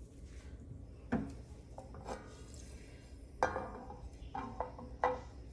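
A small nonstick pan knocking and clinking against the metal grate of a gas cooktop as it is handled, about five separate clinks, some with a brief ringing.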